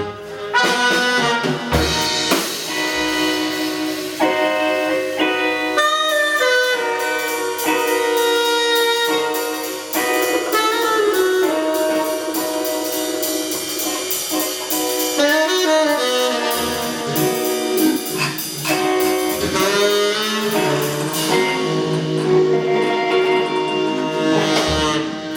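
Live band playing jazz: a melodic lead line moving up and down over a drum kit with frequent sharp hits.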